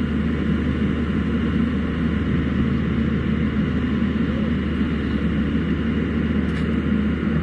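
Caterpillar excavator's diesel engine running steadily close by as the machine works.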